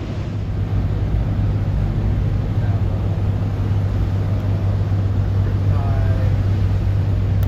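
Steady low drone of a truck's engine and tyres as it drives along the beach sand.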